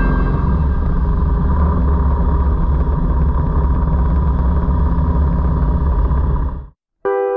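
Steady low rumble of a motor vehicle on the move, cutting off abruptly near the end.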